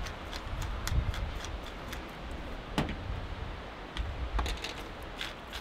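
Hand-twisted spice grinder grinding seasoning, giving irregular runs of small clicks and ticks.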